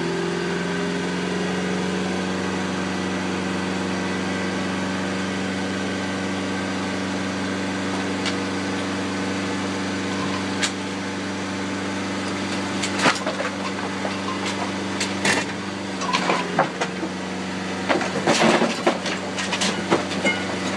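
Skip-loader lorry's engine running steadily to power the hydraulic lifting arms as a skip is hoisted, a constant hum. From a little past halfway, a series of sharp metal clanks and knocks, bunched near the end, as the skip and its chains shift on the arms.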